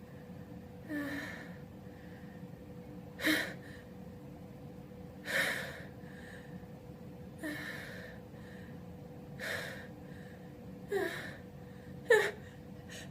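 A man's gasping breaths building up to a sneeze: about seven short, sharp inhalations roughly two seconds apart, coming quicker and louder near the end.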